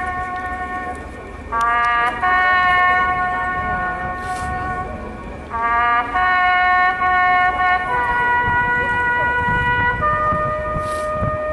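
A solo brass horn playing a slow call of long held notes, each lasting two to four seconds, a couple of them scooping up into pitch. A low rumble runs underneath.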